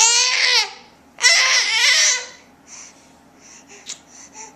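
Four-month-old baby's high, thin squealing cries, sounding like a dying bird: one trails off about half a second in, another follows after a short pause and lasts about a second, then only soft breathy sounds.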